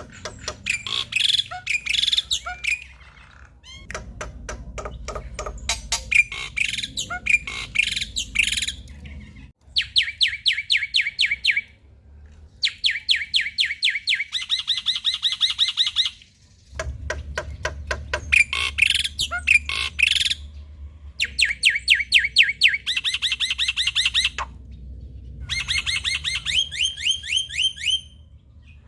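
Male black-winged myna (jalak putih) singing in long, loud bouts of fast, repeated chattering notes and trills, with short pauses between bouts.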